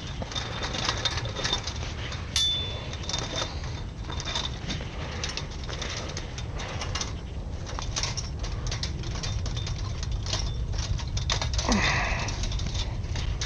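Irregular metallic clicking and rattling of a mechanism being worked, over a steady low rumble, with a brief high ring about two seconds in.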